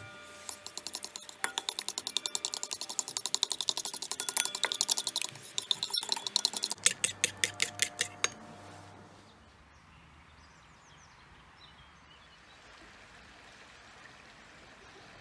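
Metal spoon stirring a thick sauce in a ceramic bowl: a fast run of clinks as the spoon strikes the bowl's sides, several a second, some of them ringing briefly. The stirring stops about eight seconds in.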